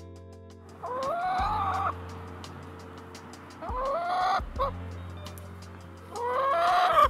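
A chicken calling three times, each drawn-out call about a second long, rising and then falling in pitch, over background music with sustained low notes.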